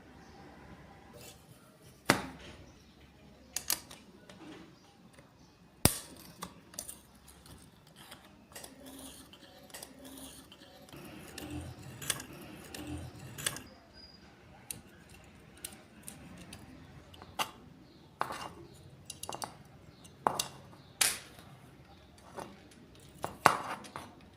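Metal tools and blades being handled: irregular sharp clicks and clinks, some ringing briefly, with a quicker cluster of knocks around the middle.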